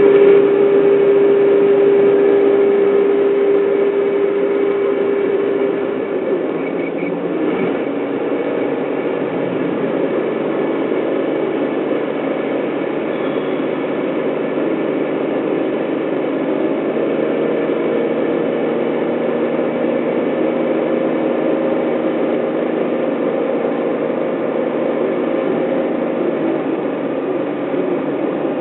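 Steady engine and road noise of a moving car heard from inside the cabin: a constant drone with humming tones. One hum fades out about six seconds in, and a slightly higher one comes in later.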